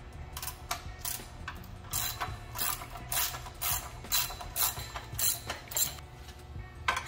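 13 mm ratchet wrench clicking in short quick runs, about two a second, as it backs off the nut of the band clamp holding a truck DPF assembly's sections together.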